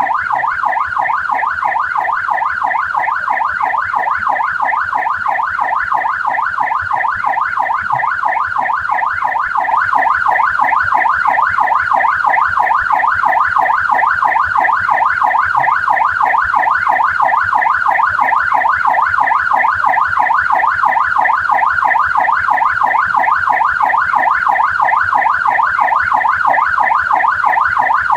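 Australian police car siren in yelp mode, its pitch sweeping rapidly up and down several times a second without a break. It gets a little louder about ten seconds in.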